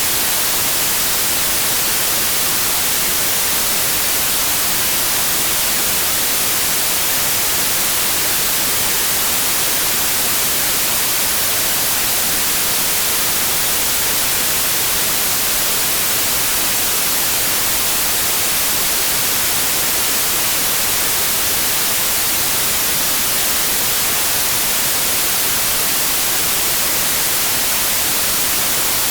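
Steady white noise: an even, unbroken hiss with no tones or changes, brightest in the high end.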